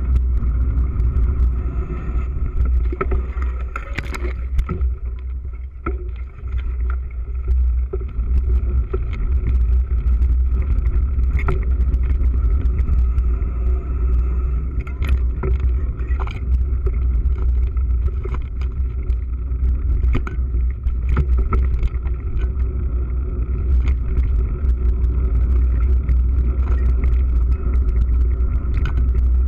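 Mountain bike riding along a dirt singletrack: a steady low rumble of wind and vibration on the action camera, with frequent clicks and rattles from the bike over bumps.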